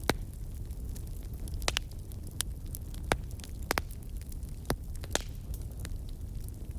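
Wood fire crackling in a fireplace: irregular sharp pops and small ticks over a steady low rumble of the burning.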